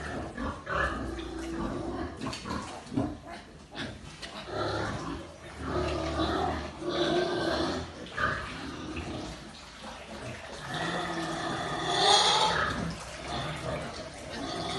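Pigs grunting and calling in a pen in irregular bursts, with a few sharp knocks in the first few seconds.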